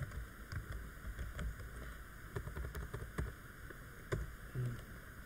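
Computer keyboard keys clicking in short, irregular taps as text is typed and deleted, over a steady low background hum.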